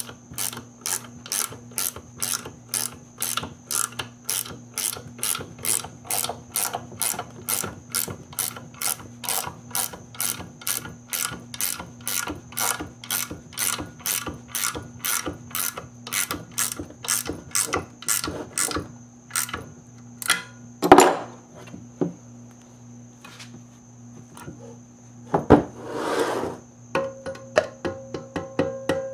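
Ratcheting combination wrench clicking steadily, about three clicks a second, as it turns the nut on the threaded stud of a bolt-on LS valve spring compressor clamped to a cylinder head. The ratcheting stops about two-thirds of the way through, followed by two loud knocks.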